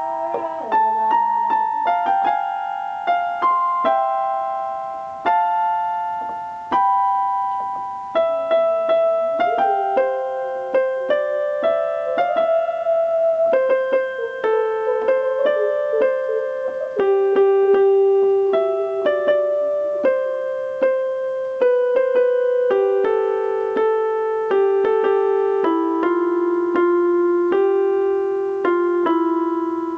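Slow piano music: single notes and chords struck one after another, each ringing and fading, with the melody stepping gradually lower through the passage.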